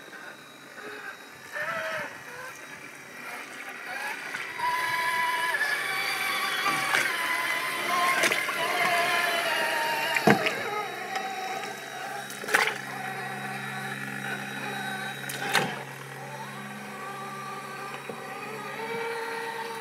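Electric drive motor and gears of an Axial SCX6 1/6-scale RC rock crawler whining, the pitch rising and falling with the throttle. Several sharp knocks stand out as the tires and chassis hit rock.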